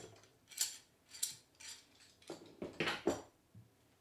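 A hand tool working against metal hardware on a wooden jig: a series of about seven short metallic scrapes and clicks, the loudest cluster near three seconds in.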